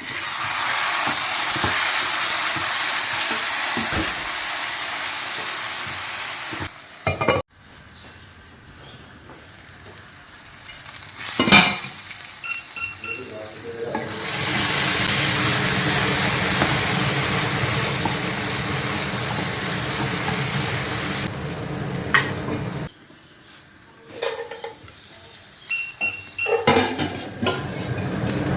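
Food sizzling in a hot pan in long steady stretches, with a spoon stirring and clinking against the pan in the quieter gaps.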